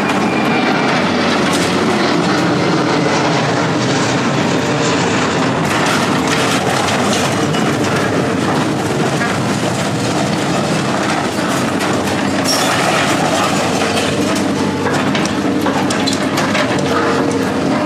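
Heavy machinery working scrap metal: a steady engine hum under continuous clanking and rattling of metal.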